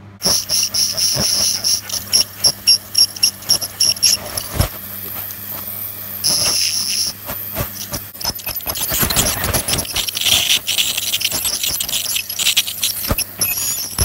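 Ultrasonic dental scaler working tartar off a poodle's teeth: a high-pitched whine that pulses on and off rapidly at first, then runs more steadily over a hiss of water spray, with small scraping clicks.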